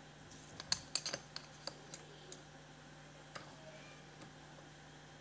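Light, sharp clicks and taps of a digital caliper being slid and set against an aluminium plate held in a small vise: a quick run of clicks about a second in, then a few scattered ones. A faint steady hum underneath.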